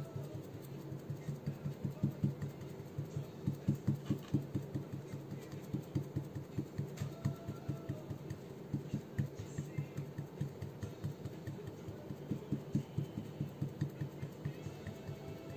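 Sponge dauber pounced again and again on a mirror-effect painted surface: quick, uneven, dull taps, a few a second. A steady low hum runs underneath.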